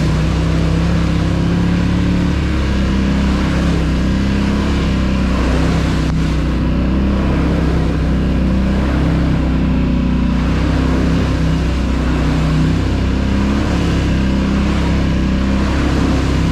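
ATV engine running as the quad is ridden along a trail, its pitch rising and falling with the throttle.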